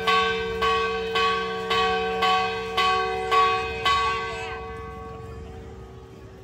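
Church bell struck over and over at a steady pace of nearly two strokes a second. The strokes stop about four seconds in and the bell is left ringing as it dies away.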